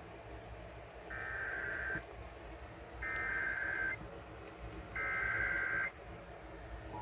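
Emergency Alert System SAME header: three bursts of data tones, each just under a second long and about a second apart, played through a small smart speaker. Right at the end, the steady two-tone EAS attention signal begins.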